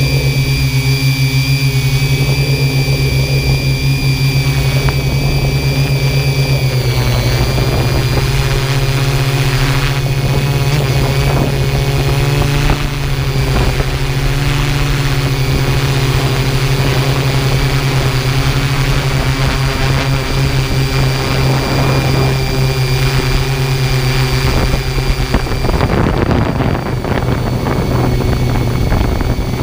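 Drone's electric motors and propellers running steadily, heard through the camera it carries: a loud hum with a steady high whine, dipping slightly in pitch about seven seconds in.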